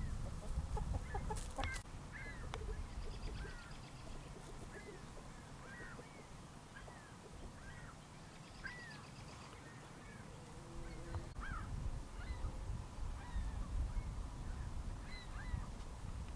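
Chickens calling in a run of short, repeated chirping calls, about one or two a second, over a low rumble.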